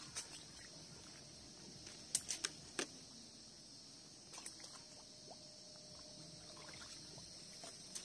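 Water sloshing and splashing as a person wades through a shallow, weed-covered pond, with a cluster of sharp splashes about two seconds in and a few more about halfway through, over a steady high-pitched hiss.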